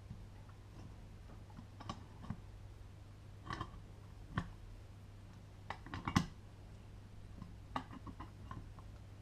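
Scattered small clicks and knocks of metal parts as the two halves of an airsoft V7 gearbox shell are handled and pressed together over the compressed spring, a cluster of knocks about six seconds in being the loudest. A steady low hum lies underneath.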